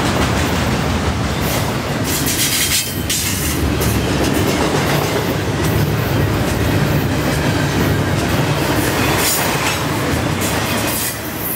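Double-stack intermodal freight train of container well cars rolling past, a steady loud noise of steel wheels running on the rails, getting quieter near the end as the last car goes by.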